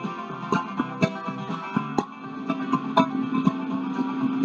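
Guitar-led instrumental music with a steady picked beat and a held low note in the second half.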